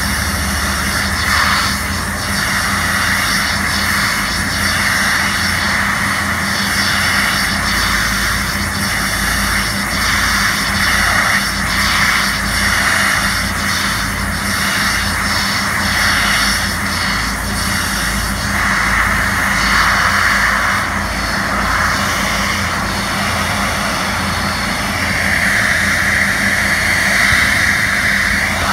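High-pressure water jet from a hydroblasting lance striking concrete: a loud, steady hiss that swells and eases as the lance sweeps across the surface, over a steady low hum.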